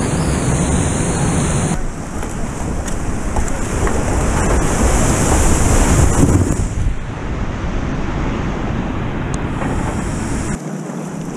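Rushing whitewater of river rapids and a waterfall, with wind buffeting the microphone. The sound changes abruptly twice, and is loudest about five to six seconds in.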